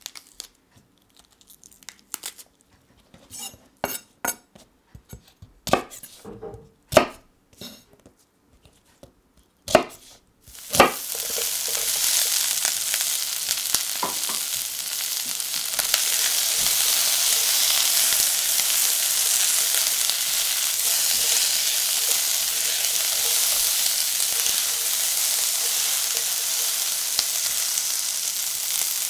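Green bell pepper being torn apart by hand, a string of sharp crunchy snaps with short pauses between them. Then, about eleven seconds in, pieces of bell pepper and sliced onion start sizzling in hot oil in a metal pan. The sizzle is a loud, steady hiss while they are stirred.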